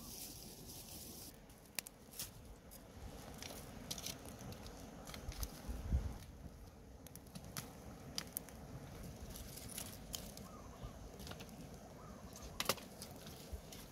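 Dry straw and twigs crackling and snapping as a small cooking fire between stones is lit and fed with sticks: scattered sharp clicks over a faint hiss, with one dull knock about six seconds in.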